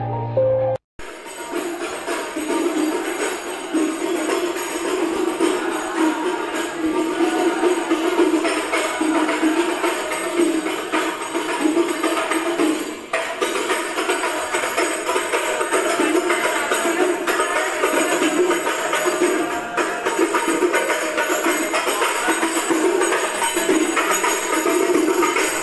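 Rebana frame drums with jingling metal discs played live in a steady rhythm, the jangle continuous throughout. About a second in, it takes over from the end of a short piano tune.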